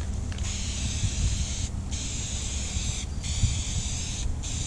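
Aerosol can of Duplicolor vinyl and fabric spray hissing as it lays a light first coat onto carpet, in four sprays of about a second each with short breaks between, over a steady low rumble.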